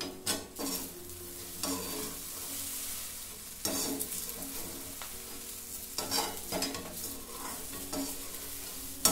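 Sabudana khichdi being stirred with a metal spatula in a metal kadai over a gas flame, roasting with a steady light sizzle. Several irregular louder scrapes of the spatula against the pan stand out.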